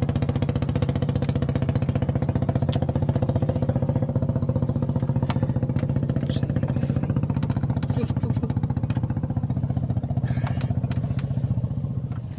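A small engine running steadily at an even speed with a fast, regular chugging; it cuts off near the end.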